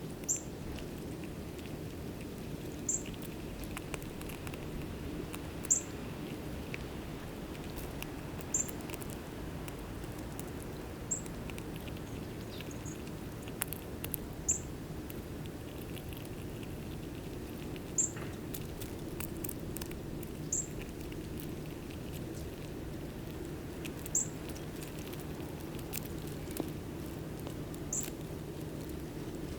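A bird giving single short, high chip notes, about ten in all, one every two to four seconds, over faint scattered clicks and a low steady hum.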